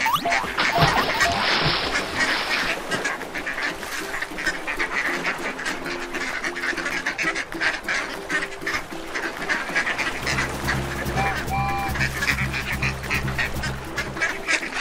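Cartoon duck sound effects: a duck quacking over and over in quick short calls, with a splash of water about a second in. Background music with a low bass comes back in for the last few seconds.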